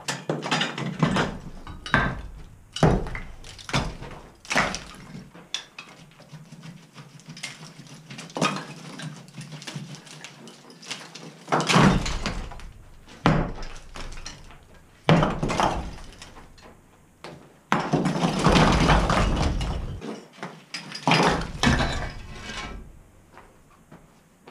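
Demolition of a modern plaster-and-brick fireplace hood: a quick run of sharp knocks in the first few seconds, then chunks of plaster and brick breaking away and crashing onto a rubble pile, with a longer clatter of falling debris about three-quarters of the way through.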